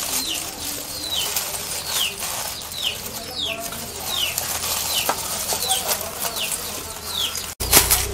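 A small bird chirping over and over, short falling chirps about twice a second, over the crinkle and rustle of aluminium foil being pulled open with tongs. A sudden loud noise near the end.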